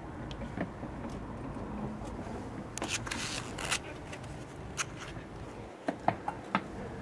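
Grey squirrels scrabbling and scuffling on a windowsill just outside the glass: light scratching and clicks, a rushing scuffle about three seconds in, and several sharp clicks near the end, over a steady low hum.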